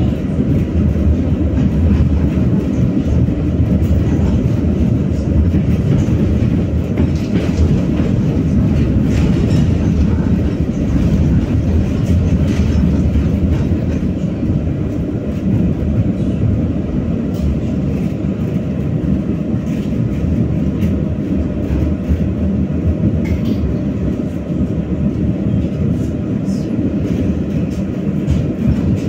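BKM-60102 tram running along the track, heard from aboard: a steady low rumble of wheels and drive, with scattered clicks and knocks from the rails.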